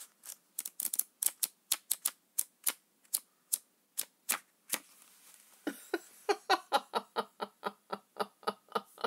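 Pages of a small flip book snapping off the thumb as it is flipped: a string of sharp paper clicks, spaced out at first, then quicker and more even from a little past halfway.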